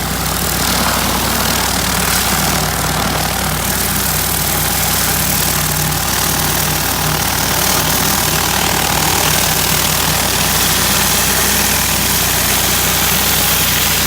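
Pressure washer engine running steadily while water sprays through a hover disc surface cleaner onto a concrete driveway, a steady low engine drone under a loud spraying hiss.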